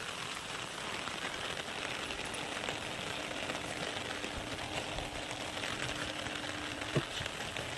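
Steady rain pattering, with a dense patter of small drop ticks, and one sharp knock near the end.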